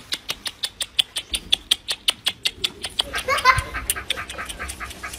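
Fast, even clicking, about seven clicks a second, with a domestic cat meowing once about three seconds in.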